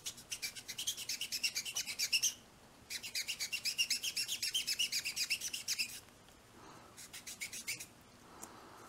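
Fine-grit sanding paper rubbed quickly back and forth on the plastic body of a 1/25 scale model pickup cab, about six scratchy strokes a second. There are pauses after about two and six seconds, and the strokes are fainter near the end. The sanding is feathering out a leftover mold line on the fender.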